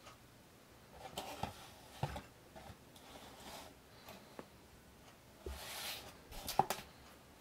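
Faint handling noises from a cardboard packaging sleeve for 1/64 diecast trucks: soft rustles and scrapes, with a couple of light clicks near the end.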